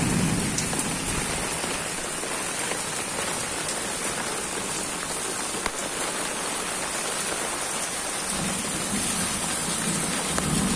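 Steady heavy rain falling on stone and concrete, with rainwater running along a channel. Near the end a deeper, louder rush comes in as water pours from a roof downpipe onto the ground.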